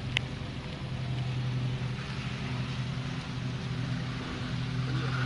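An engine running steadily at a constant low pitch, with one sharp click just after the start.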